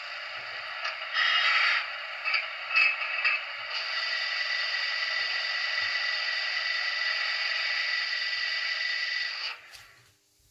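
Sound decoder of a model Köf diesel shunting locomotive playing its engine sound through a small onboard speaker. It comes in a thin band of sound with several short louder bursts in the first few seconds, then runs steady with a faint whine, and dies away about nine and a half seconds in.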